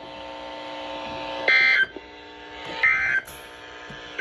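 Emergency Alert System end-of-message tones closing a severe thunderstorm warning: short, buzzy digital data bursts repeating about every 1.3 seconds, two in full and a third starting at the very end. A steady low hum runs before the first burst.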